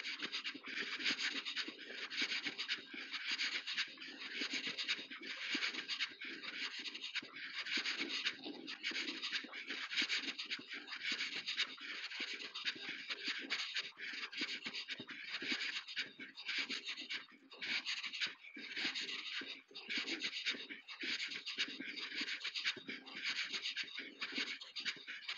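Footsteps crunching at a steady walking pace, about two steps a second.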